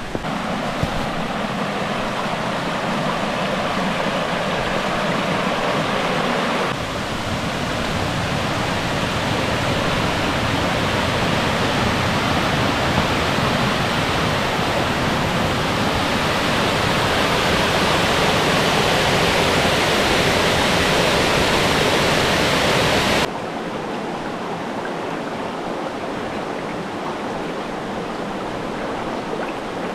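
Waterfall: steady rushing water with no tone or rhythm. It steps up abruptly about seven seconds in, then drops to a quieter, thinner rush near the end.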